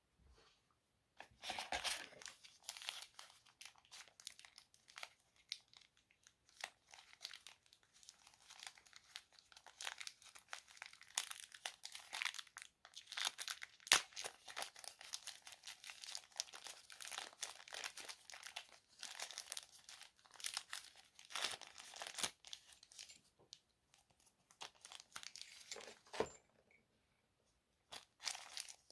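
Packaging crinkling and rustling in irregular bursts as it is handled and unwrapped, stopping a couple of seconds before the end.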